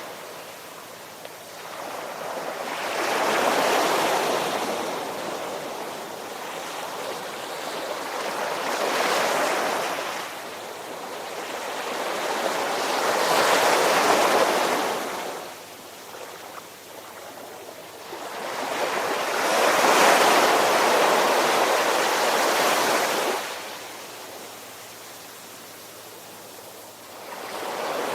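Ocean waves washing in and drawing back, four slow swells of surf each building and fading over a few seconds, the last one longer, then a lull before the next wave builds near the end. A faint steady low hum sits under the quieter stretches.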